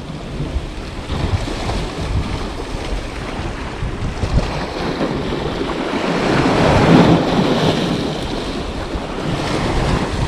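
Sea waves washing and breaking against rocks, with wind blowing on the microphone; the surf swells loudest about two-thirds of the way through.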